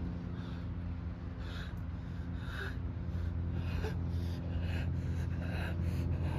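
A person breathing heavily, a hard breath about once a second, over a steady low hum.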